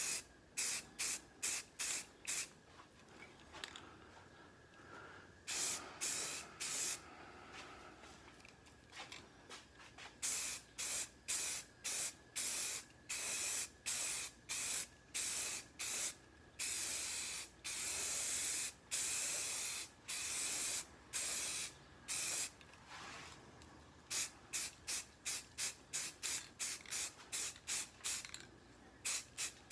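Aerosol spray can of Rust-Oleum 2X flat grey paint hissing in many quick short bursts, with a few longer sprays of a second or two, as paint is laid on in passes.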